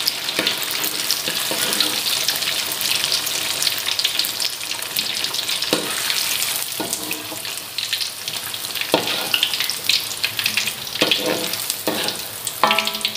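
Tofu sizzling in hot oil in a wok, a steady crackling hiss, with a few short knocks of a metal spatula against the wok as the pieces are lifted out.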